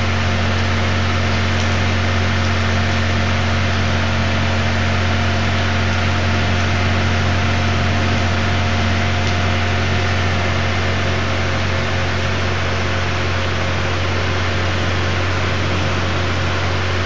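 Steady rain hiss at night, overlaid by a loud, constant low hum from an unseen machine or electrical source.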